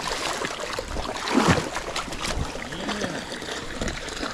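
Shallow water sloshing and splashing around a landed tarpon held in the water to revive it, with one louder surge about a second and a half in.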